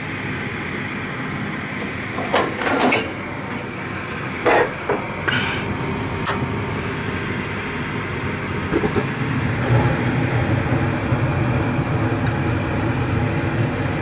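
Aire-Flo gas furnace running in heat mode with its burners lit, fired to thaw an iced-over air-conditioning coil: a steady mechanical hum, with a few sharp knocks and clatters of the sheet-metal cabinet in the first half. About nine and a half seconds in, the hum grows deeper and louder.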